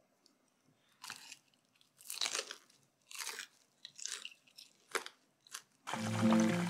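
Crunchy chewing of crispy Japanese fried chicken (karaage): about six crisp crunches, roughly one a second. Music starts suddenly near the end.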